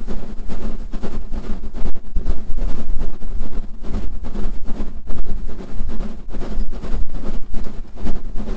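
Steam locomotive S15 506, a two-cylinder 4-6-0, working hard up a steep gradient: its chimney exhaust beats pulse quickly over a steady low rumble.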